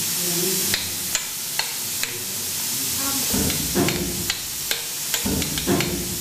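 Hand hammer striking a miner's iron chisel (Schlägel und Eisen) against rock, sharp metallic taps about twice a second, some heavier than others, over a steady hiss.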